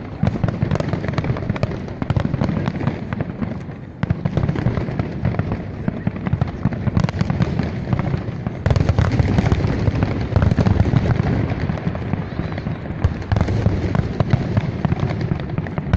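Fireworks display going off in a dense, continuous barrage of bangs and crackling, with crowd voices underneath.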